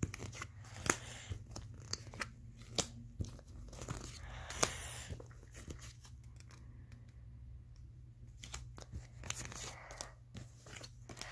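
Pokémon trading cards being handled on a cloth bedcover: irregular sharp clicks and flicks as cards are picked up and dropped, with short rustles of card and fabric.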